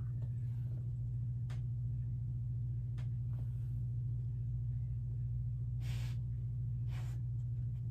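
A steady low hum, with two short breaths close to the microphone about six and seven seconds in and a few faint taps earlier.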